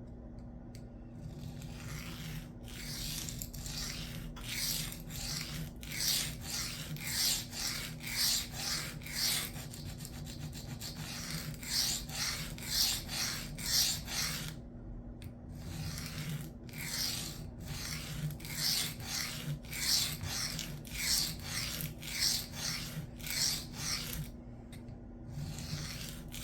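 Knife blade being stroked along a sharpening stone, repeated rasping strokes at about two a second, grinding a new edge at about 22 degrees per side and raising a heavy burr. The strokes begin a second or two in and stop briefly twice in the second half.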